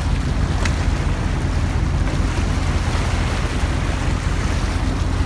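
Steady wind noise on the microphone over the sound of waves and a boat on open water.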